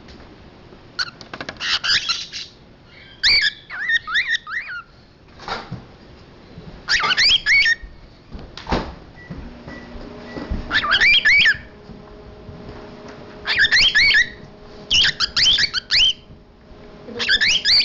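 Pet cockatiel chattering in about eight short bouts of rapid, wavering high chirps and whistles, with a couple of sharp knocks between the bouts.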